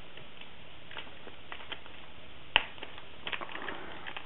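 Small plastic parts bag being handled and crinkled between the fingers, with light ticks and one sharp click about two and a half seconds in.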